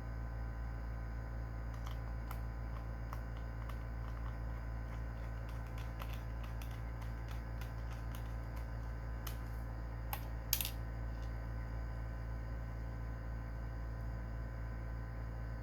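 Scattered light clicks and taps of small laptop parts and tools being handled, with a sharper click about ten and a half seconds in, over a steady low hum.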